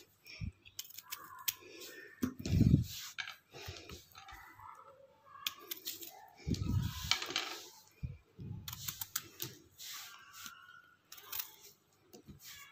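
Knife blade scraping the ridged skin off a bitter gourd (karela): a run of short rasping scrapes and clicks. A few dull handling knocks come about two and a half seconds in and around seven seconds.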